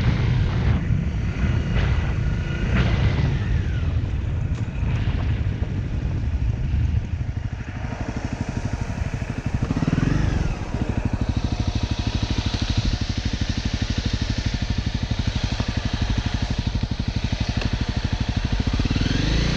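Honda CRF250L's single-cylinder engine pulling along for the first several seconds, easing off, giving a short blip of revs about ten seconds in, then settling to a steady, evenly pulsing idle. The revs rise again right at the end.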